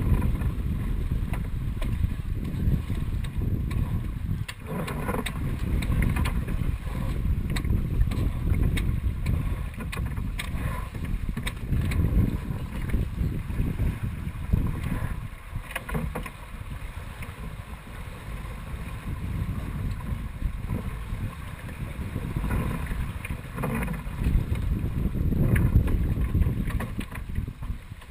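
Wind buffeting the camera microphone and water rushing along the hull of a Dufour 45e sailing yacht under way, a steady rough noise that swells and eases, with a few sharp clicks and knocks scattered through it.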